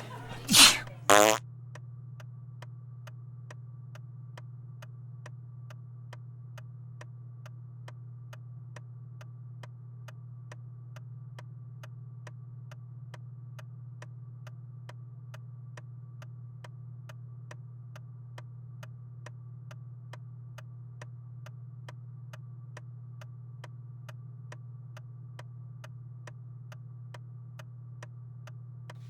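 A clock ticking steadily and evenly over a constant low hum in a small room. Near the start there are two short, loud bursts of noise.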